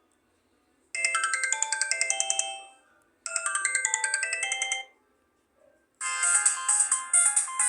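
Sony Ericsson K330a mobile phone playing its ringtones through its speaker: a short phrase of quick electronic notes, about a dozen a second, plays twice with a pause between, then a different ringtone melody starts about six seconds in.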